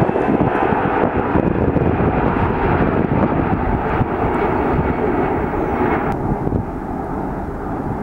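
Four-engined Airbus A340 jet engines running at takeoff power, a loud, steady rushing roar through the takeoff roll, rotation and climb-out. About six seconds in, the higher hiss drops away and the sound gets slightly quieter as the aircraft climbs away.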